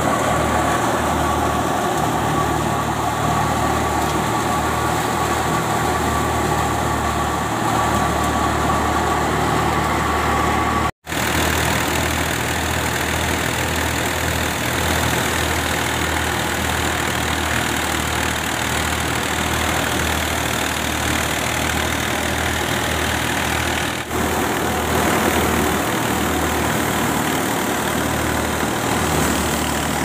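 A tractor-driven wheat thresher running steadily: the tractor's engine drones under a continuous mechanical din. The sound cuts out for an instant about eleven seconds in.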